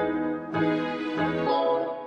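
Background music led by a keyboard or electric piano, with new notes and chords coming in about every half second.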